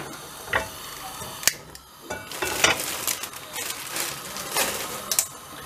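Gas stove burner being lit: a few sharp clicks, then an even hiss of the gas flame from about two seconds in, with more clicks through it.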